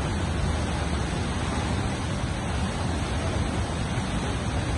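Floodwater rushing in a steady, loud torrent across a submerged road and pouring over its edge.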